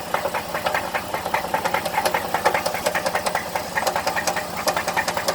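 2010 Dodge Ram 1500's 3.7-litre V6 engine running with a rapid, steady knock, several strikes a second. The cause is unknown; the owner thinks it sounds like it comes from the bottom of the engine.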